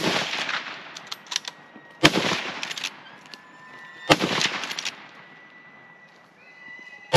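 Rifle shots in quick succession: sharp cracks about two seconds apart, each trailing off in a rolling echo. The echo of a shot fired just before fades at the start, two more shots come about two and four seconds in, and another cracks right at the end.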